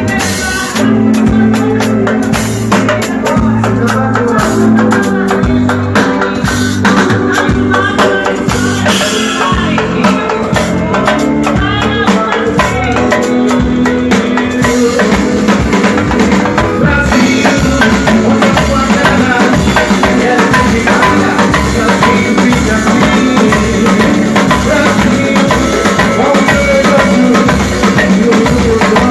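Live band music with a steady drum-kit and percussion beat, with no words sung.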